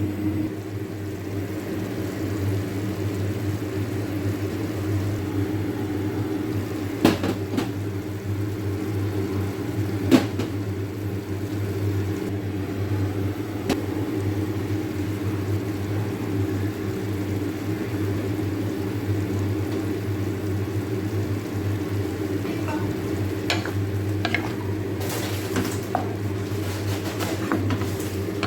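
Steady low mechanical hum with a few single clicks and knocks of kitchen utensils, which come more often in the last few seconds.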